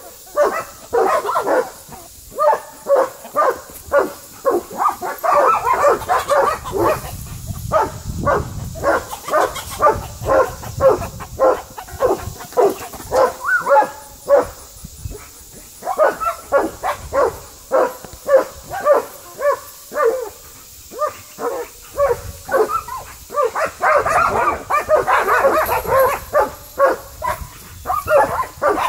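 Puppy barking over and over, about two barks a second, with only brief pauses.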